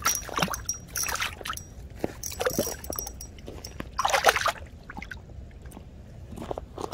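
Water splashing and sloshing in irregular bursts as a hooked trout thrashes in the ice-fishing hole while being landed, with one bigger splash about four seconds in.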